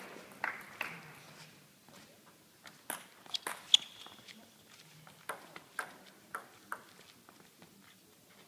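Table tennis ball clicking: a scattered series of sharp ticks from the ball bouncing and being struck, spaced a fraction of a second apart in two clusters, one with a brief high ringing ping.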